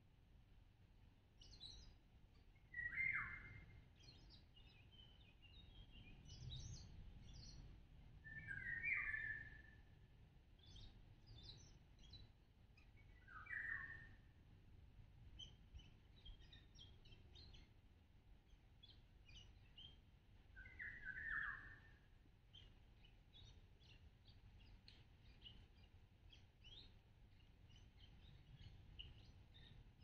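Wild songbirds calling and singing in woodland: one louder bird gives a short call four times, a few seconds apart, over a scatter of faint, high chirps and twitters from other birds.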